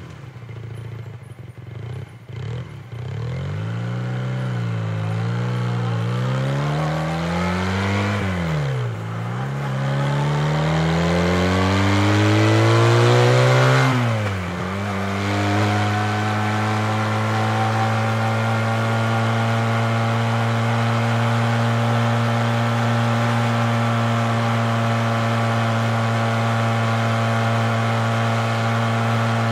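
Honda 250 motorcycle engine heard from a microphone on the bike, pulling away hard. After a few uneven seconds its pitch climbs, drops sharply at two gear changes, about 9 and 14 seconds in, and then holds steady as the bike runs at a constant speed.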